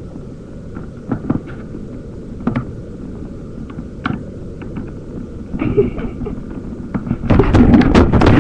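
Cat snoring close to a computer microphone: a low, steady rumble with a few soft clicks. About seven seconds in, loud knocking and rubbing noise on the microphone takes over.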